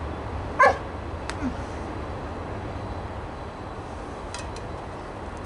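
Steady low background rumble, with one short high whine falling in pitch about half a second in, then a faint click.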